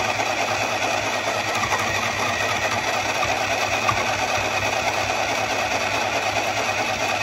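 ArtLak mini electric sewing machine running steadily, its motor and needle mechanism stitching through fabric, a little loud.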